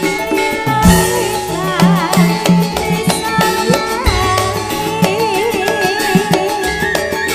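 Campursari band playing a langgam live: a woman sings with a wavering vibrato over drums and a steady bass line.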